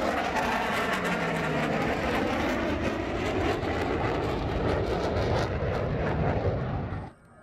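Boeing CF-18 Hornet fighter jet passing in its display, its twin jet engines making a loud, steady noise with a rough crackle. The sound cuts off suddenly near the end.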